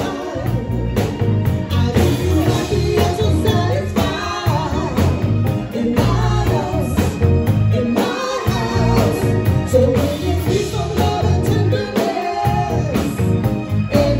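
A live band playing, with electric bass, drum kit and keyboard under women singing into microphones.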